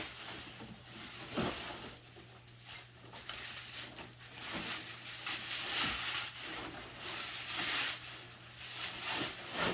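Rustling and crinkling of packaging material being pulled and handled in several bursts, with a few light knocks, as a bicycle frame is unwrapped.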